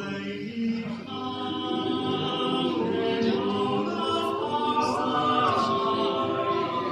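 Mixed-voice a cappella ensemble of seven singers (sopranos, altos, tenors and basses) singing in close harmony without instruments, holding sustained chords.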